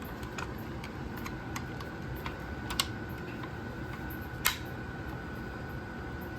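Light scattered clicks and taps from an AK-pattern rifle being handled, with two sharper clicks about three and four and a half seconds in, over a steady background hum.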